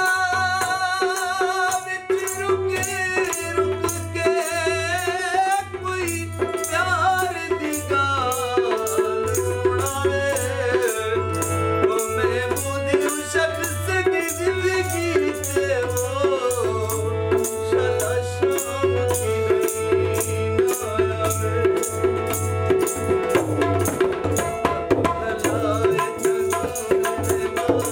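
A man sings a Saraiki song, accompanied by a harmonium and a tabla keeping a steady beat.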